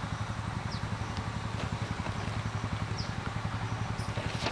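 A steady low engine hum with a fast, even pulse, like a motor idling. Three faint short high chirps sound over it, about a second in and near the three-second mark.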